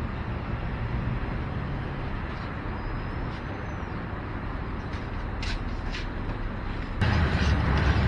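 Steady low background rumble with a few faint clicks around the middle. The rumble gets abruptly louder about seven seconds in.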